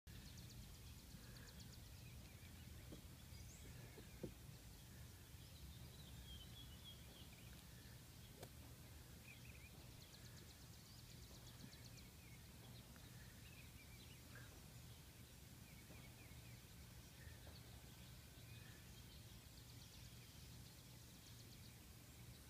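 Near silence: faint low outdoor rumble with scattered faint bird chirps and trills, and one small click about four seconds in.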